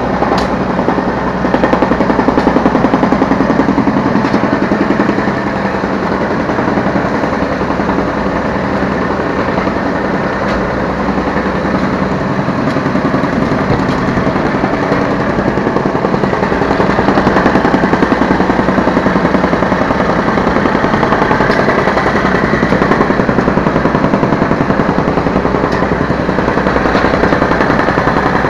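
Yanmar B3Σ 3-ton mini excavator's diesel engine running steadily at working revs, a dense rapid pulsing heard close up from the operator's seat. The level swells a little now and then as the hydraulics take load.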